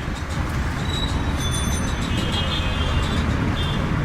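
Busy road traffic: engines rumbling steadily, with a few short high-pitched beeps about halfway through and near the end.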